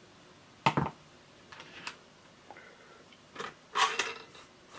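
Hand tools being handled on a workbench: a sharp knock about a second in, a few light clicks, then a short cluster of scratchy clicks near the end.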